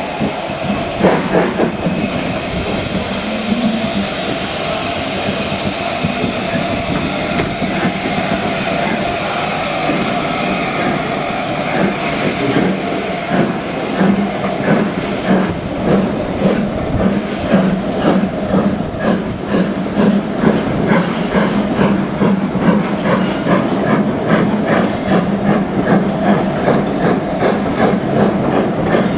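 Steam locomotive letting off a loud hiss of steam, then a steady run of rhythmic beats, about two to three a second, from about halfway through as the train gets moving.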